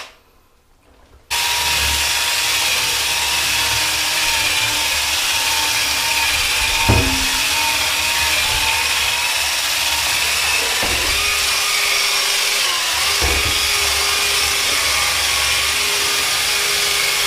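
Cordless drill spinning a toilet bowl brush in a bathtub of soapy water, scrubbing a stain: a steady motor whine over the brush churning the water, starting about a second in. A single knock comes around the middle, and the whine shifts pitch slightly a couple of times later on.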